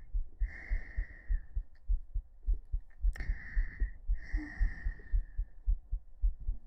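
A person's heartbeat picked up by a microphone pressed against the chest: steady, regular low thumps, a little fast. Over it come three soft hissing rushes of breath-like noise.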